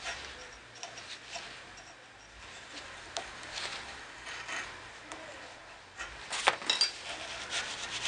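Steel wool on a shaft twisted and scrubbed inside the bushing bore of a cast steel door hinge, scouring out rust: a soft, scratchy rubbing, with a few sharper clicks near the end.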